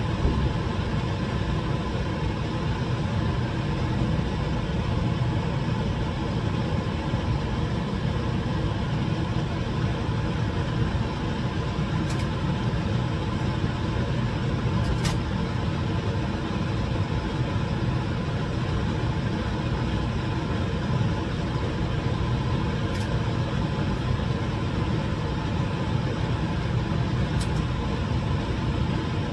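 Biosafety cabinet blower running, a steady storm-like rush of air with a low hum under it. A few faint clicks stand out against it.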